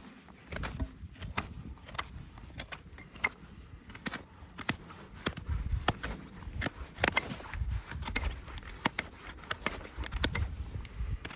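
Hoof work on a horse: irregular sharp clicks and knocks with low thuds in between.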